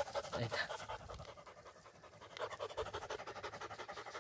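Quick, rhythmic panting close to the microphone, a steady train of short breaths that starts about a second in.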